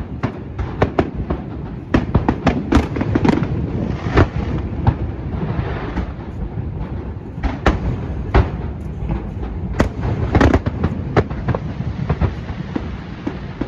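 Aerial fireworks going off in a rapid, irregular barrage of bangs and crackles over a continuous rumble.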